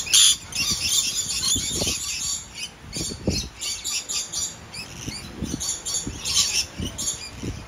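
Small parrots, such as lorikeets, squawking and chattering continuously in a dense overlapping flurry of short, high calls. A few short low thumps sound underneath.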